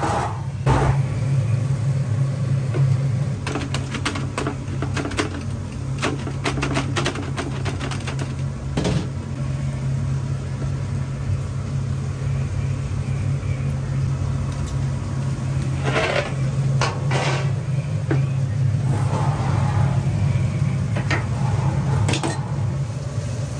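Steady low mechanical hum, with scattered clicks, knocks and metal clatter from work at a charcoal roasting oven and its metal lid.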